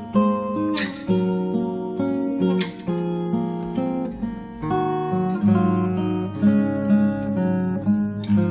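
Morris W40 acoustic guitar being played, chords strummed with a few sharp strokes between stretches of ringing, picked notes that change every second or so.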